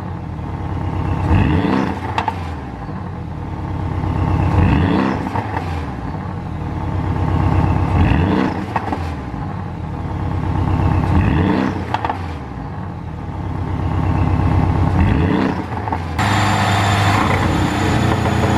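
Porsche 718 Boxster GTS turbocharged flat-four revved up about five times. Each time the revs fall, the exhaust pops and crackles on the overrun, the effect of a pop-and-bang engine tune. Near the end the sound changes to a steadier running note.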